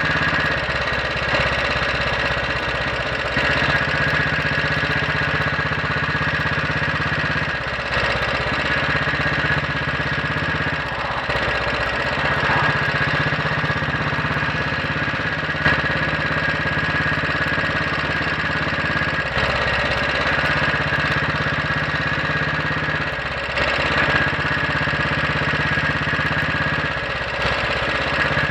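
Royal Enfield Bullet 500's single-cylinder four-stroke engine running under way on a road ride, its note shifting several times as the revs change. It is running with the inlet cam retarded by one tooth.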